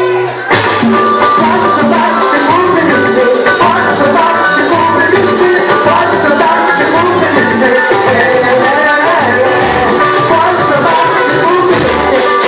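Live pagode (Brazilian samba) band playing, with singing and percussion. A held pitched note breaks off about half a second in as the full band music takes over.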